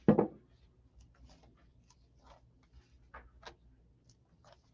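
Faint scattered rustles and soft clicks of handling noise, about nine in all, spread unevenly through a quiet room. A man's voice trails off right at the start.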